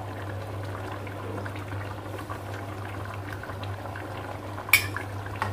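Thin coconut-milk spice broth simmering around a whole chicken in a wok, a steady bubbling over a constant low hum. A single sharp clack sounds near the end.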